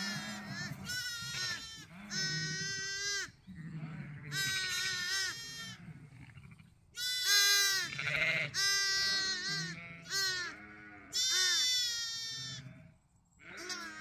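Zwartbles lambs bleating, about six high calls one after another, typical of lambs calling for their mothers after being separated from them.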